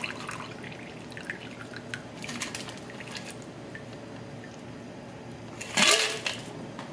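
The last of a shaken cocktail pouring from a stainless steel shaker tin into a highball glass, thinning at the start to a trickle and scattered drips. A short, louder knock comes a little under six seconds in.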